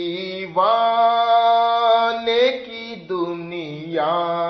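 A man singing an Urdu naat, a devotional song in praise of the Prophet, drawing out long held notes: one from about half a second in for about two seconds, and another starting near the end.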